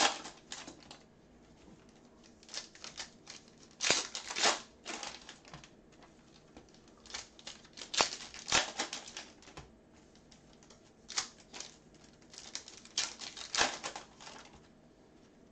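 Football trading cards being flicked through one by one by hand, with foil pack wrappers crinkling: clusters of quick clicks and rustles, loudest about four and eight seconds in.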